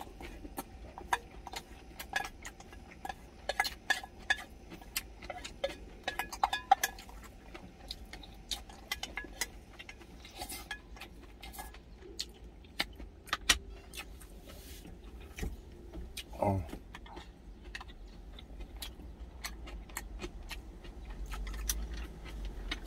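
Wooden chopsticks and spoon clicking and scraping against a stainless steel bowl during eating, many small irregular clinks, over a low steady rumble.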